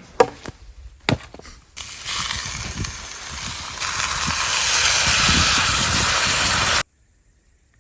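A few knocks and clatters, then food sizzling loudly in a hot pan: a steady hiss with small crackles that grows louder about four seconds in and cuts off suddenly.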